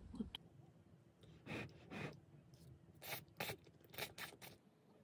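Chopsticks and a wooden spoon working through cheese-topped curry udon in a pot, lifting the noodles: a quiet series of about seven short, soft scrapes and rustles in the second half.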